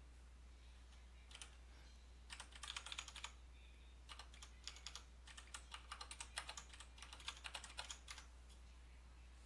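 Computer keyboard keys typed in faint quick runs with pauses: a few taps about a second and a half in, a burst around three seconds in, and a longer run from about four to eight seconds in. A faint steady low hum lies under it.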